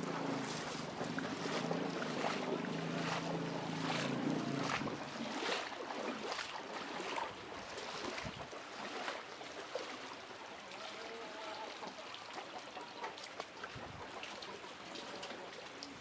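An engine running steadily, fading away after about five seconds, with wind noise on the microphone throughout.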